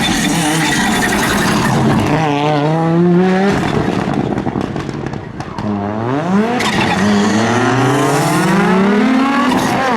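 Audi Quattro S1 rally car engine pulling hard through the gears. The revs climb about two seconds in and drop away around the middle as the throttle comes off. They then rise steeply again, with an upshift about two-thirds of the way through, and climb once more toward the end.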